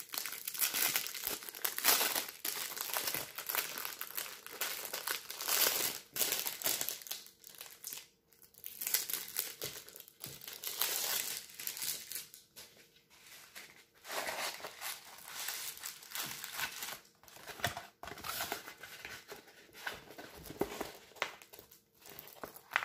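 Packaging of a rolled diamond painting kit being unwrapped by hand, crinkling and tearing in irregular bursts with short pauses.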